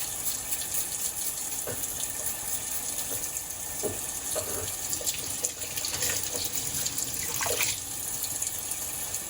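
Water running from a tap into a sink, with scattered light clinks and knocks as small metal bellcrank parts are handled and scrubbed under it.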